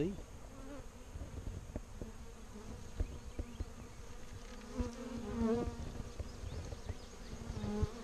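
A swarm of honey bees buzzing, a steady hum that swells as a bee passes close about five seconds in. Occasional low thumps on the microphone.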